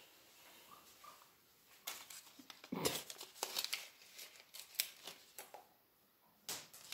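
Packaging crinkling and crackling as it is handled. The sharp, irregular crackles start about two seconds in.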